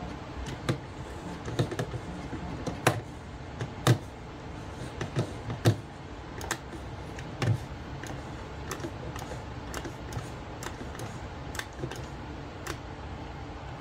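Irregular clicks and knocks from a 1986 Macintosh Plus and its mouse as MacPaint loads and a picture opens. The heaviest knocks come in the first six seconds, lighter clicks follow until near the end, and a steady low hum runs underneath.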